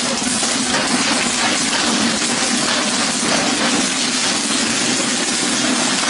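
Popcorn kernels popping in the open stainless kettle of a manual gas-fired popcorn machine: a dense, continuous crackle of many quick pops as the corn is stirred with a long paddle, at the height of the popping.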